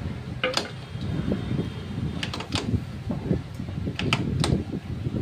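TVS Jupiter scooter's kick-start lever pushed down by foot, with several clunks and clicks over a low, uneven scraping noise. The kick is stiff and jammed: a broken CVT drive belt is caught inside the transmission case.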